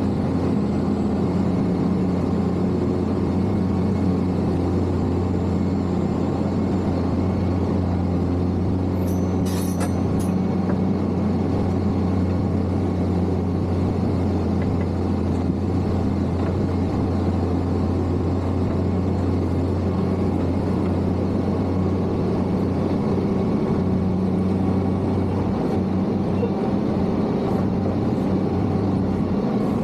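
Case motor grader's diesel engine running steadily under work, with a brief high-pitched squeal about ten seconds in.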